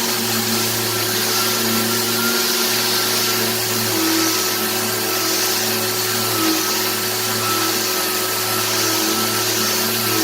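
Electric sander running steadily against the wood veneer of a piano cabinet, a constant motor hum under a sanding hiss that swells and eases slightly as it moves over the surface.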